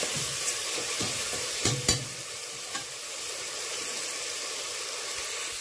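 Onion, ginger and garlic paste sizzling steadily as it fries in hot oil in a pressure-cooker pot. A metal spoon scrapes and knocks against the pot a few times in the first two seconds as the paste is stirred, then the sizzle goes on alone.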